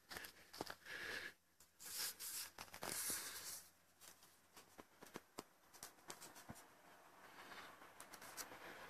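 Footsteps through dry undergrowth: leaves rustling and small twigs crackling and snapping underfoot, in irregular faint clicks with a couple of louder rustling bursts about two and three seconds in.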